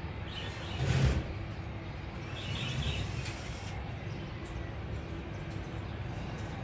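Low, steady rumble of a distant twin-engine jet airliner on its landing roll. Birds chirp twice, and a brief thump comes about a second in.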